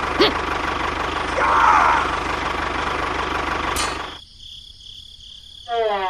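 An engine running steadily with an even low chug, cutting off abruptly about four seconds in. Near the end comes a short train whistle, falling in pitch.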